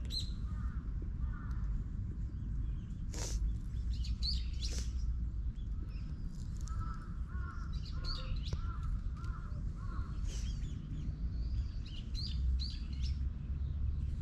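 Birds calling outdoors: high chirps come and go, and a run of about six repeated calls sounds near the middle. A steady low rumble lies underneath, with a single sharp click about three seconds in.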